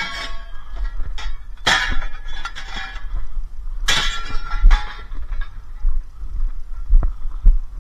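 Scrap metal thrown into the caged bed of a tipper truck: three loud metal clangs with ringing, at the start, about two seconds in and about four seconds in, then a few lighter knocks, over a steady low rumble.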